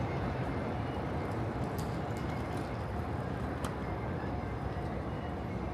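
Steady city street ambience: a low, even traffic rumble with a few faint sharp clicks.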